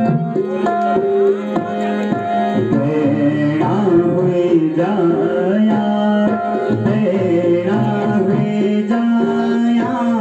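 Harmonium and tabla playing a Garhwali mangal (auspicious ceremonial) song: held harmonium notes with tabla strokes under them.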